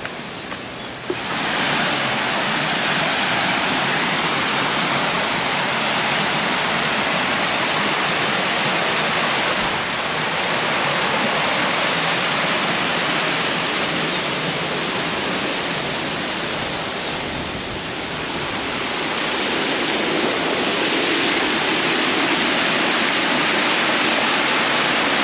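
Waterfall cascading over rocks: a steady, loud rush of falling water that sets in suddenly about a second in and dips slightly twice.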